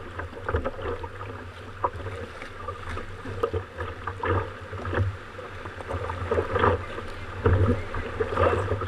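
Sea water sloshing and slapping against a sea kayak's hull and bow as it is paddled through swell, in irregular splashes over a steady low rumble. The splashes are heavier in the second half.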